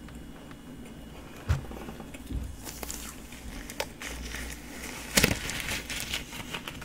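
Crinkly plastic rustling from a disposable plastic glove being handled and pulled at, starting about two and a half seconds in and loudest a little past five seconds, with a few soft mouth clicks from closed-mouth chewing before it.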